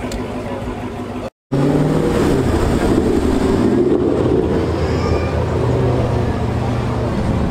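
Dodge Charger engines running as the cars creep by at low speed, a steady low rumble. The sound cuts out for a moment about a second and a half in, then comes back louder.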